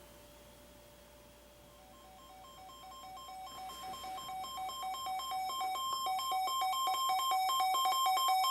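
Weather alert radios sounding their warning alarm: a rapid pulsing electronic beep on two pitches, getting steadily louder from about two seconds in, then cutting off suddenly at the end. It marks a newly received weather warning.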